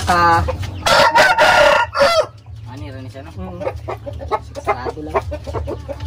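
Game rooster crowing loudly once, about a second in, the crow lasting about a second and ending on a falling note, followed by fainter crowing and clucking from other gamecocks.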